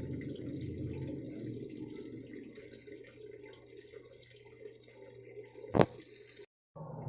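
Sharp ES-V75HP-GY automatic washing machine taking in water, a steady low rushing with a faint hum. A single sharp click sounds near the end, and the sound then cuts out for a moment.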